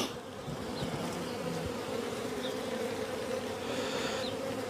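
Honeybees buzzing around an open hive, a steady drone of many bees in flight. The bees are stirred up by the hive being opened and the frames being handled.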